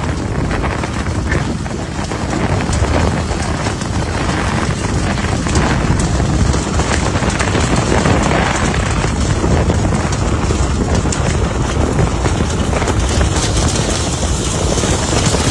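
Negative-air vacuum machine running steadily, a loud rush of air and motor noise pulling through a dryer vent duct, with scattered light ticks.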